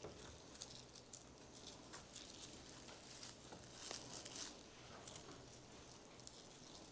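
Faint, scattered rustling and crackling of dried lavender stems and flower heads being handled as bundles are stacked into a swag, over a faint steady hum.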